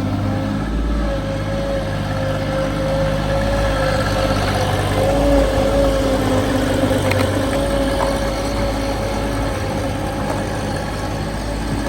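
Engine of a digging machine running steadily, with a steady whine above it.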